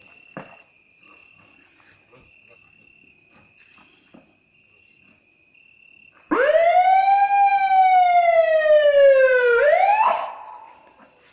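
Ford ambulance's siren sounding one wail: about six seconds in it sweeps up quickly, falls slowly for about three seconds, starts to rise again and cuts off.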